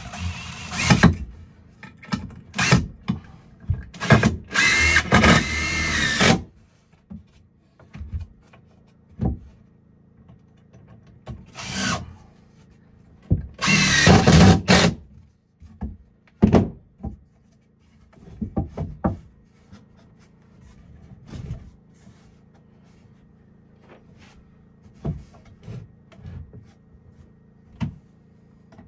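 A power drill running in short trigger bursts, the two longest about two seconds each, a few seconds in and near the middle, its pitch shifting with speed. Scattered knocks and clatter of wood and tools come between the bursts.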